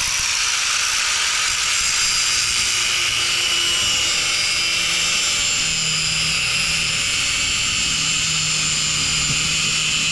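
Angle grinder spinning up and grinding steadily into the steel of an e-brake handle, a loud, continuous high whine with rough grinding noise; the metal is hard and the wheel is slow to get through it.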